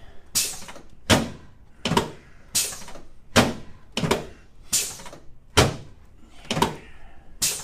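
A steady series of sharp thumps on a chiropractic treatment table during an adjustment, about one every three-quarters of a second, each with a short ringing tail.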